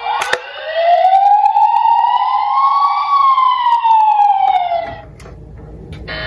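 Battery-powered toy ambulance's electronic siren: a click, then one wail that rises for about two and a half seconds and falls again before cutting off about five seconds in. A fainter low rumble follows near the end.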